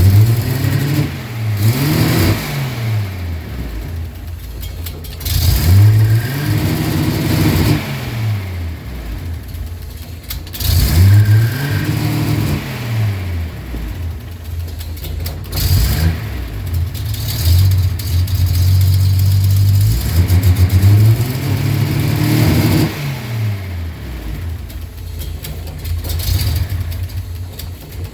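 Datsun 280Z's 2.8-litre straight-six engine revved up several times with the throttle and falling back between blips to a rough, uneven idle. The owner is trying to diagnose why it idles rough and runs incorrectly with throttle applied.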